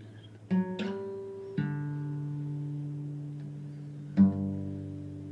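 Instrumental music with no singing: a few plucked string notes and chords, each left to ring out and slowly fade, the loudest about four seconds in.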